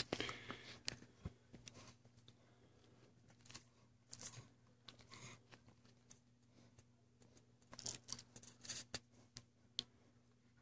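Faint, irregular rustling and scratching of a hand moving over a dog's fur close to the microphone, in a few short clusters with a sharp click near the end, over a low steady hum.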